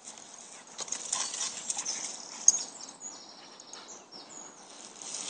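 Scattered light rustles and footsteps on a leaf-strewn path, with a small bird singing thin, high notes about three seconds in.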